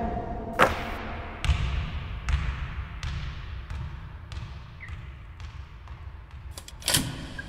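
Basketball being dribbled on a hardwood court in an empty arena: evenly spaced bounces a little more than one a second, each with a short echo, growing fainter, then a sharper, louder knock near the end.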